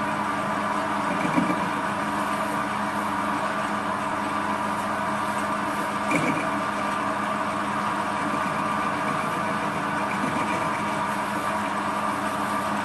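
Small metal lathe running with its chuck spinning: a steady mechanical hum with several held tones from the motor and spindle gearing.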